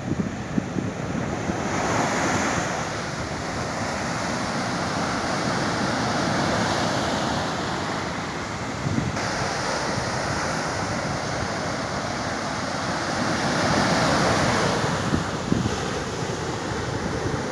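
Ocean surf breaking on the shore: a continuous wash of waves that swells louder about two seconds in and again around fourteen seconds, with wind buffeting the microphone.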